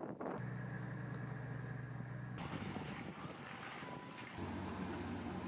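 Steady low hum of a boat's engine, with wind on the microphone. The hum breaks off abruptly about two seconds in and comes back about two seconds later.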